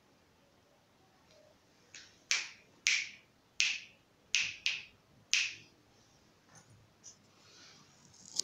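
A person snapping their fingers about seven times in quick, uneven succession, starting about two seconds in. Each snap is sharp and followed by a short ring off the tiled walls, and a few fainter ticks come near the end.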